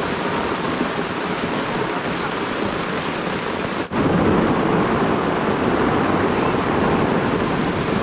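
Heavy rain, a dense steady hiss. It cuts out for an instant about four seconds in and comes back a little louder.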